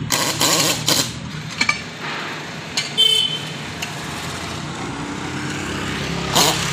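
Pneumatic air hammer driving a bead breaker down onto a tyre bead, in short bursts of rapid blows in the first second and again near the end. Steady street traffic underneath, with a brief horn toot about three seconds in.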